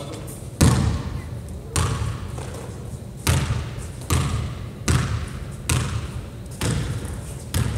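A basketball being dribbled on a hardwood gym floor: eight bounces, roughly one a second, each echoing through the large hall.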